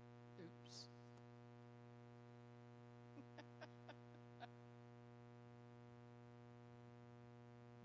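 Near silence with a steady electrical mains hum, and about five faint clicks around three to four and a half seconds in.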